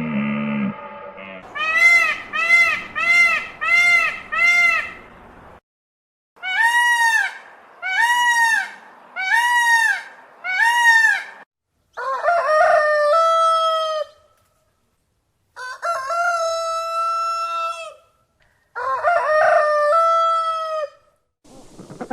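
Chickens calling: two runs of five short rising-and-falling calls, then a rooster crowing three times, each crow ending on a long held note.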